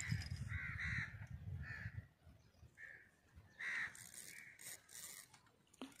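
Crows cawing, a series of about six short harsh caws over the first four seconds, with a low rumble under the first two seconds.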